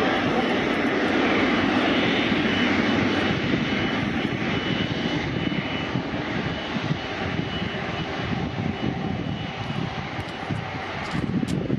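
Turbofan engines of a Bombardier CRJ regional jet landing and rolling out on the runway: a steady jet rush with a faint high whine, easing off slightly after the first few seconds.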